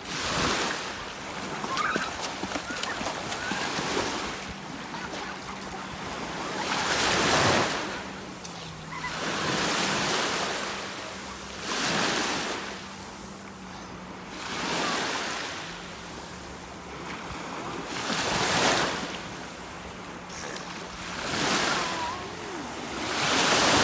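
Sea waves washing in and receding, the rush swelling and fading every two to three seconds, over a faint steady low hum.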